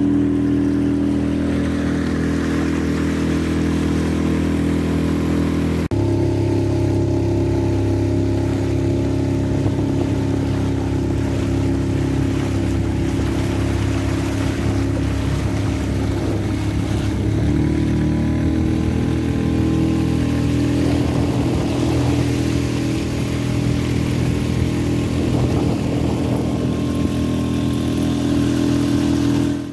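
Small boat's motor running steadily under way, with water and wind noise. A brief break about six seconds in, and the engine note shifts around the middle.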